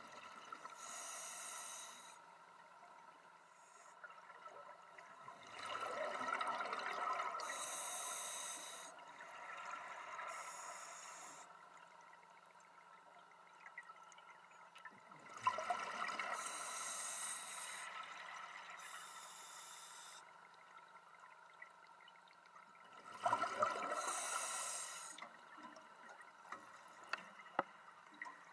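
Scuba diver breathing through a regulator underwater: a short hiss on each inhale, then a longer rush of exhaled bubbles, about three full breaths at a slow, even pace.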